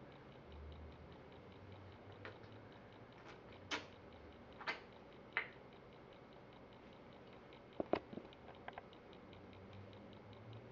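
Quiet room tone broken by about six brief, faint squeaks and clicks scattered through it, over a faint steady ticking.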